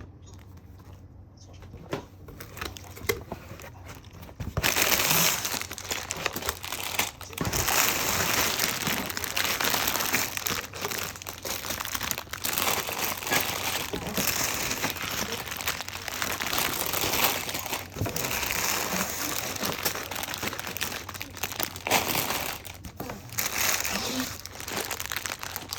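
Continuous crinkling and rustling dense with small clicks. It starts abruptly about four and a half seconds in, after a quieter stretch of a few light clicks.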